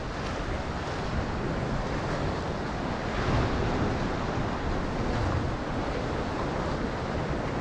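Ocean waves washing and sloshing, with wind buffeting the microphone. The wash swells a little about three seconds in and again around five seconds.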